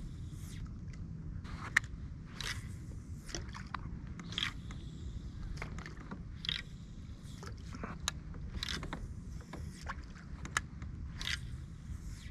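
Kayak under way through shallow water: a steady low rumble with short swishing sounds about once a second.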